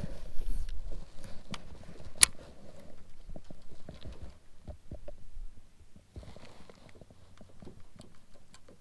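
Light clicks and knocks from handling a baitcasting rod and reel in a kayak just after a cast, with one sharp click about two seconds in, then scattered small taps as the lure is reeled back.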